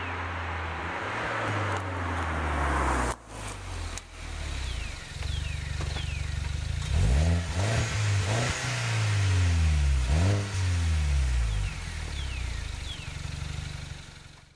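Mini Cooper Clubman S turbocharged four-cylinder heard through its exhaust: it grows louder as the car nears, then at a standstill it idles and is blipped several times about halfway through, pitch climbing and falling, before settling back to idle. Birds chirp briefly.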